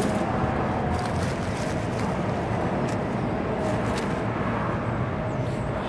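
Steady road traffic noise, a dense low rumble with a faint steady hum and a few light clicks.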